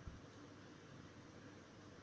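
Near silence: steady faint hiss of room tone.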